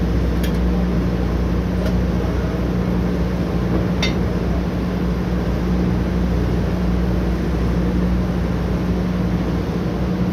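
Oil drilling rig's machinery running with a steady low hum and rumble, with a few faint clicks.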